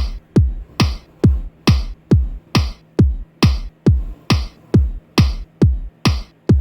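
Background electronic music with a steady drum-machine beat: a deep kick a little over twice a second, each hit dropping in pitch, with lighter high percussion on top.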